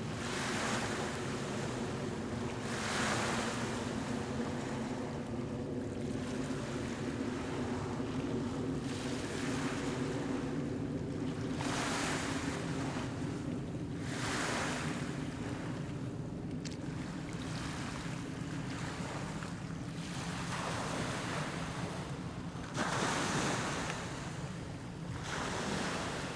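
Small Lake Ontario waves washing in over a pebble shore, in swells every few seconds, over a steady low hum.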